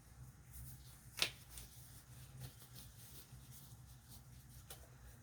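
Rubber glove being pulled onto a hand: light rustling and small clicks, with one sharp snap of the latex about a second in, over a faint steady low hum.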